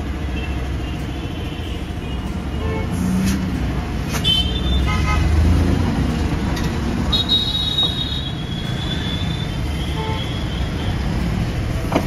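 Road traffic running steadily, with vehicle horns tooting a few times in the middle, one short toot about four seconds in and a longer, higher one around seven seconds in.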